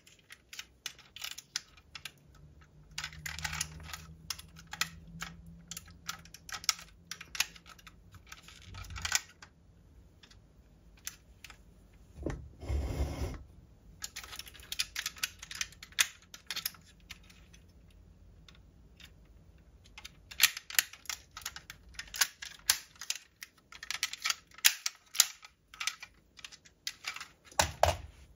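Diecast toy SWAT truck being handled: a stream of small, irregular clicks and taps as its hinged doors and parts are worked, with one duller knock about halfway through.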